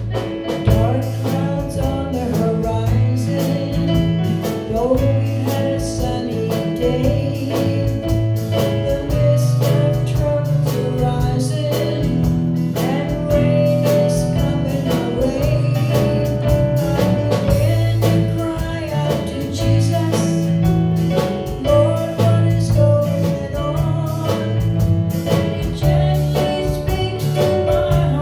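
Country-gospel song with a woman singing the melody over accompaniment of guitar, bass and drums, with a steady beat.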